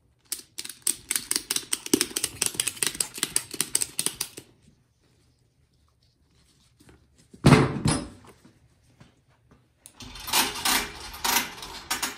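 Ratchet strap being cranked tight around a snowblower tire's tread, its pawl clicking in quick runs, squeezing the sidewalls out toward the rim so the bead can seat. A single loud thump comes about halfway through.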